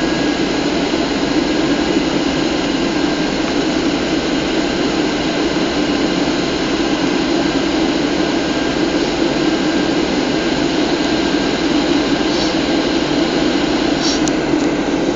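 Steady roar of a Boeing 737's CFM56 turbofan engines and rushing airflow, heard inside the passenger cabin on approach.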